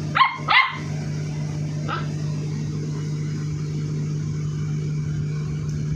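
Labrador puppy giving two quick, high yips close together, then a fainter one a couple of seconds later, over a steady low hum.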